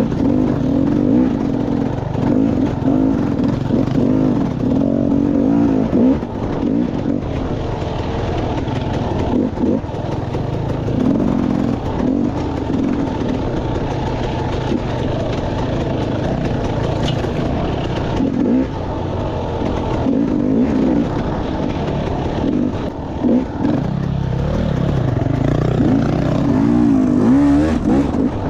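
2014 KTM 300 XC-W two-stroke single-cylinder dirt bike engine revving up and down over and over as the rider works the throttle through tight trail, with the clatter of the bike over rough ground.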